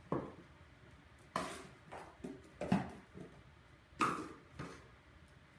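A dog nosing through small cardboard boxes on a hard floor, knocking and sliding them, heard as about six light knocks and scrapes.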